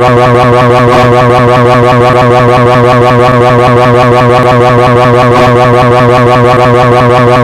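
Pocoyo's cartoon scream, a loud unbroken rolling 'jrararara' with a rapid warble in its pitch that never breaks or fades.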